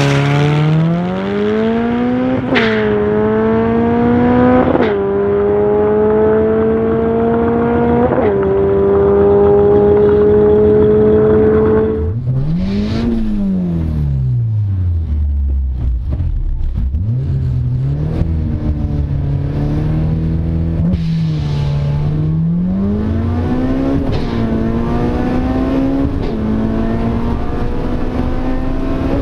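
A 1990s Honda Civic's four-cylinder engine at full-throttle acceleration. It revs up through the gears, and the pitch drops sharply at each upshift: three quick shifts in the first ten seconds. After that comes in-car engine sound as a Civic pulls hard through the gears toward its 8,000 rpm redline.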